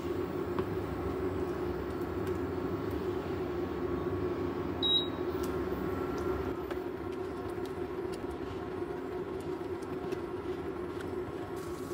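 A steady low hum, with light scrapes and taps of a spatula stirring a thick tomato meat sauce simmering in a ceramic-coated frying pan. A short high blip comes about five seconds in.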